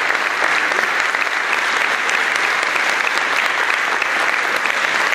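Audience applauding: dense clapping of many hands, steady in level.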